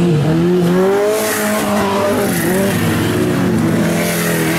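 Several bilcross race cars, among them VW Beetles, revving hard through a bend together, their engine notes rising and falling over one another, with tyre noise now and then.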